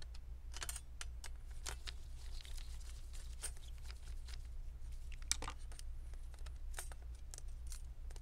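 Scattered light clicks and scrapes of hands and a small screwdriver working a laptop's thin metal 2.5-inch drive tray loose, with one sharper click about five seconds in, over a steady low hum.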